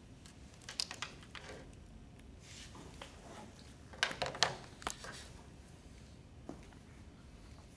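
Plastic airway equipment and a training manikin being handled: scattered clicks and rustles, with a cluster of sharper clicks about four seconds in.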